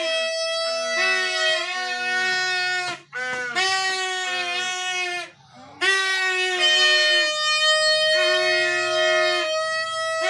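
Instrumental music with a reedy, wind-instrument sound: long held notes over a moving lower line, with two short breaks.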